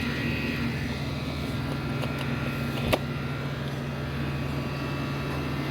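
A steady low machine hum, with one sharp click about three seconds in.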